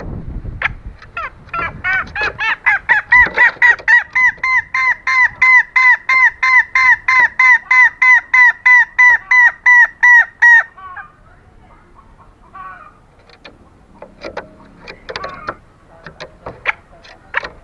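Female green junglefowl calling for a mate: a long, fast run of short repeated clucking notes, about three or four a second, that stops about ten and a half seconds in. Softer scattered calls and clicks follow, and the run starts again near the end.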